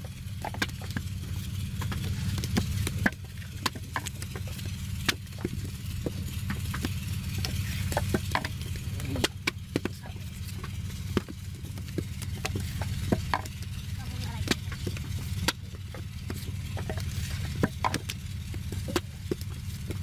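Wet clay being worked by hand and pressed into a brick mould, giving irregular soft slaps and clicks over a steady low rumble.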